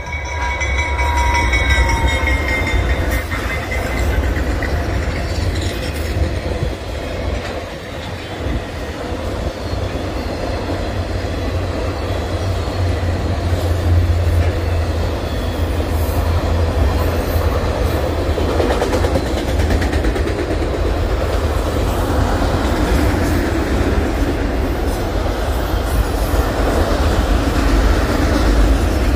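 Norfolk Southern freight train of autorack cars passing close by: the diesel locomotive and the wheels on the rails make a loud, steady low rumble with wheel clatter. A few high ringing tones fade out in the first two seconds.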